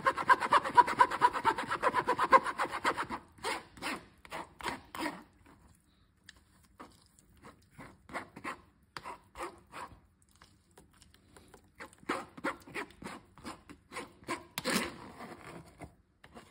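Metal spoon scraping and pressing juice pulp against a fine-mesh sieve to strain it: fast, steady strokes for about three seconds, then slower separate scrapes in short runs with pauses, with one louder scrape near the end.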